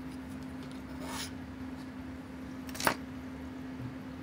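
Light handling of a removed dive-watch rotating bezel ring and case: a faint rub about a second in, then one sharp click near three seconds, over a faint steady hum.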